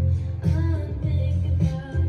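Background music: a song with a strong, pulsing bass line and a melody above it.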